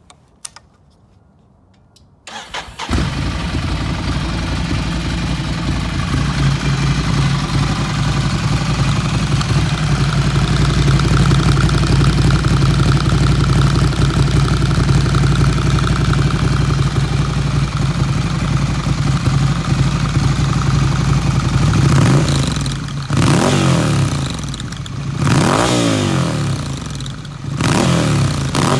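Ducati Scrambler Desert Sled's 803 cc air-cooled L-twin through a Zard Zuma slip-on exhaust with the catalytic converter deleted. It starts about two seconds in and idles steadily, then is blipped three times near the end, each rev climbing and dropping back to idle.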